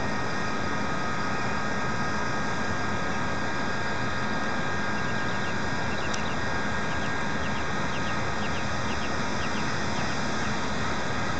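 Steady, even rumble of a distant freight train led by EMD SD70M diesel locomotives, still far off down the track, blended with outdoor background noise.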